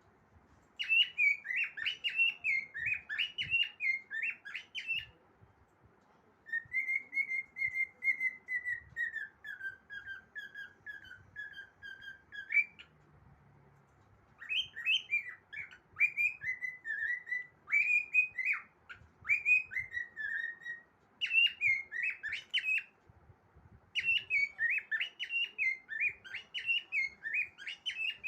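Cockatiel singing: phrases of quick whistled notes, with a longer gliding whistle that drifts slowly down in pitch in the middle, broken by short pauses.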